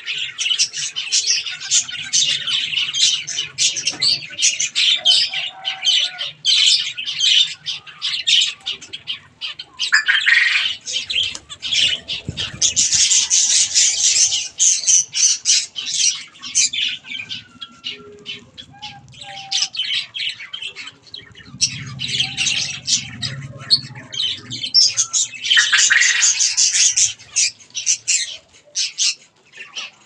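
A flock of zebra finches calling over one another: a dense, unbroken stream of short, high calls. The calling swells and thickens about twelve seconds in and again near the end.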